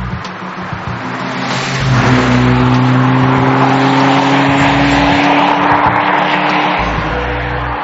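Opel Calibra driving fast along a wet road, its engine note slowly rising as it accelerates, with a loud hiss of tyres on the wet surface swelling through the middle and easing near the end.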